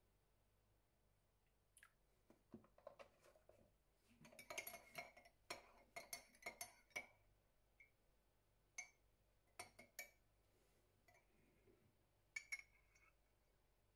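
Metal teaspoon stirring milk into tea in a white ceramic cup, faintly clinking against the sides: a quick run of clinks for several seconds, then a few scattered single taps.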